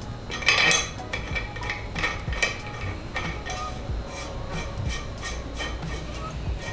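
Metal parts and tools clinking and knocking against each other in irregular light strikes with a short metallic ring, the loudest cluster about half a second in.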